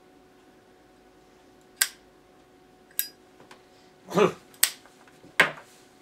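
Zippo lighter being handled: sharp metallic clicks and clacks of its lid and wheel, a few single clicks spaced about a second apart, with a brief low sound around four seconds in.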